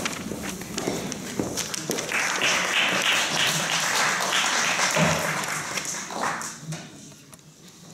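Audience applauding: scattered claps that swell into full applause about two seconds in and die away about six seconds in.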